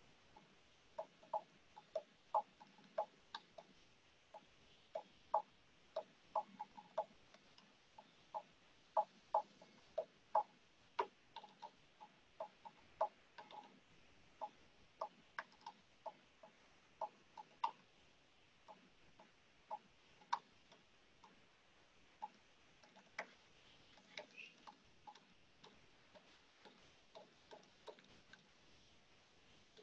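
Short, sharp ticks, irregularly spaced at roughly two or three a second, over faint room hiss.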